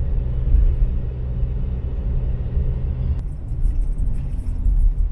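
A vehicle driving on a gravel road, heard from inside the cabin: a steady low engine and tyre rumble. The sound shifts slightly about three seconds in at an edit cut.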